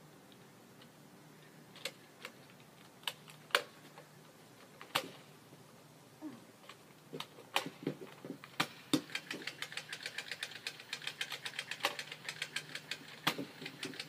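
Foam-dart toy blaster clicking: scattered single clicks, then from about two-thirds of the way in a fast even run of about seven clicks a second over a faint whir, lasting about four seconds.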